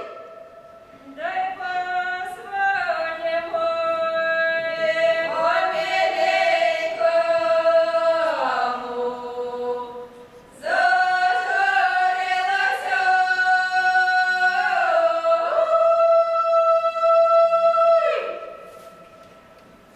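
Ukrainian polyphonic wedding song sung a cappella by a mixed folk ensemble, a high thin top voice held steady above the lower parts. The singing comes in two long phrases with a short breath break about halfway, and the final chord is held and then released a little before the end.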